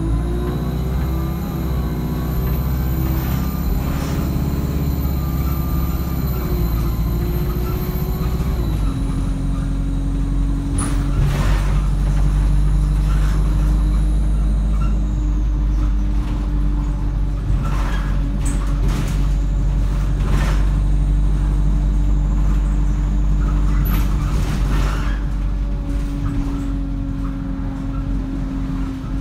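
Alexander Dennis Enviro200 single-deck bus heard from inside the saloon, its engine and automatic gearbox pulling hard: the engine note rises, drops at a gear change about eight seconds in, then holds a steady pitch. Several sharp knocks and rattles from the bus body come through in the second half.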